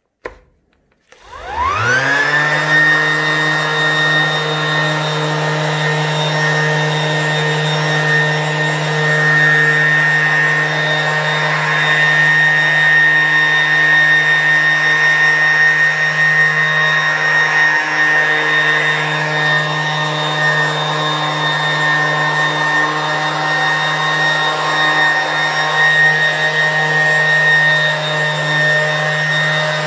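Electric orbital sander switched on about a second in, its motor winding up in pitch and then running at a steady whine while it buffs paste wax with a cloth pad on the table saw's top.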